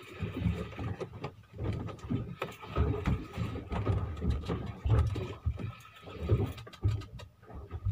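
Wind buffeting the microphone on an open boat at sea: an uneven low rumble that swells and fades every second or so, over a faint steady high tone.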